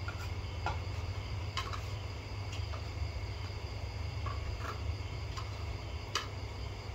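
Metal spoons clicking now and then against ceramic plates while people eat, about eight light irregular clinks. Behind them a steady chorus of crickets and a low steady hum.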